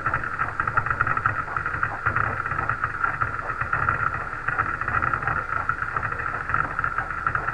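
Onboard audio of the Falcon 1 second stage's Kestrel engine firing just after ignition: a steady crackling noise with a rumble underneath and a strong whine-like band in the upper middle.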